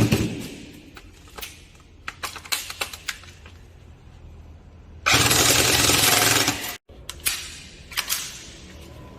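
Airsoft gun shooting: a sharp shot at the start fading away, then scattered light clicks and clinks, and about five seconds in a loud continuous burst of fire lasting about a second and a half that cuts off abruptly. A few more sharp clicks come near the end.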